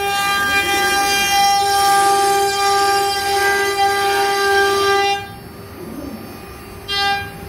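CNC router spindle whining at one steady pitch as its bit cuts a carved pattern into a board. About five seconds in the sound drops much quieter, then briefly comes back loud near the end.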